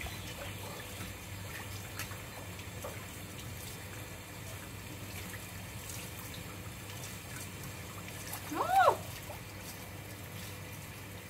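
Water running from a garden hose onto a dog being bathed, a steady trickle and splash. Late on, a short cry that rises and falls in pitch is the loudest sound.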